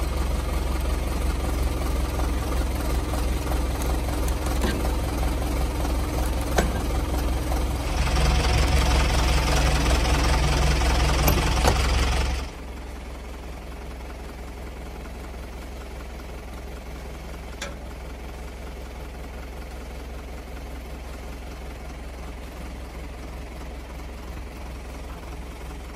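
An engine running steadily. It revs louder about eight seconds in, then drops suddenly to a quieter steady run for the rest of the time, with a few faint clicks.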